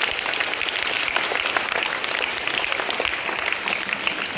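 A crowd applauding: steady, continuous clapping from many hands.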